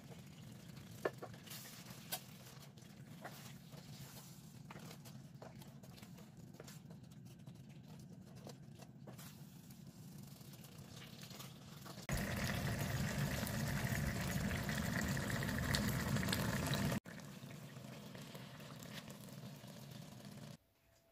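Thick beef rendang sauce simmering and sputtering in a stainless steel pan, with a wooden spoon knocking and scraping against the pan, sharpest about a second and two seconds in. A louder hiss comes in about twelve seconds in and cuts off suddenly some five seconds later.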